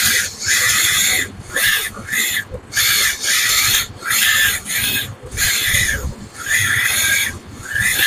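Hydraulic system of a 1/14-scale remote-control mini excavator hissing in short bursts, roughly one a second with quiet gaps between, as the control valves open and shut to move the boom, arm and bucket.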